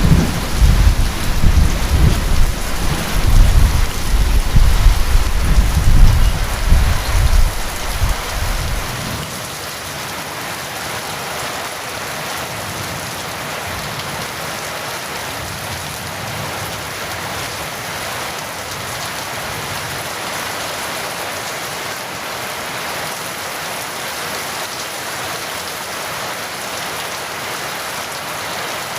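A long, low rumble of thunder over steady heavy rain, dying away about a third of the way in. After that only the even hiss of rain is left.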